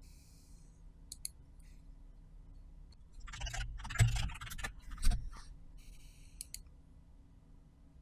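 Computer mouse clicks and a short burst of keyboard typing: a couple of clicks about a second in, then a quick run of keystrokes with two heavier strikes between about three and five seconds in, and a few faint clicks near the end.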